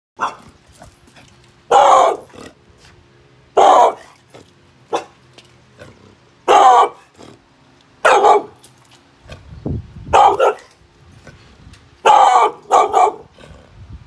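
A dog barking reactively, as at a person: about nine loud, sharp single barks, one every one to two seconds, with a low growl between barks near the middle.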